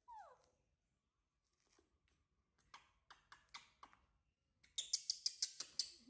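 A baby monkey gives one short call that falls in pitch. Then an orange's peel is torn away by hand in a string of crackling rips, faint at first and loud and rapid in the last second or so.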